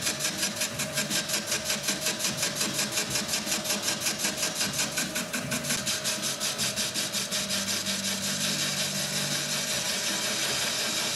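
Metal lathe (Myford ML7) turning off the rest of a sawn-off stub on a steel eccentric strap: an interrupted cut, with the tool knocking on the stub about five times a second over the steady run of the machine. Near the end the knocking fades into a smooth continuous cut as the stub is turned away.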